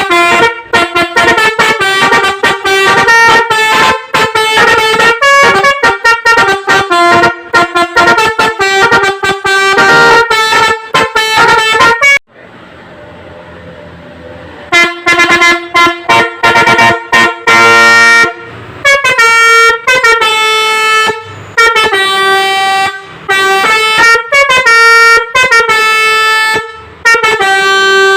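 Basuri musical air horn, silver trumpet horns driven by a tune module, playing a fast melody of short, clipped notes that step up and down in pitch. The melody stops for about two seconds midway, then starts again.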